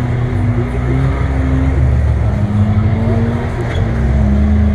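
Rock crawler's engine running, its note rising and falling a little.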